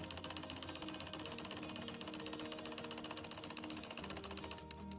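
Home sewing machine stitching fast in free-motion embroidery: a rapid, even clatter of needle strokes that stops briefly near the end. Background music plays underneath throughout.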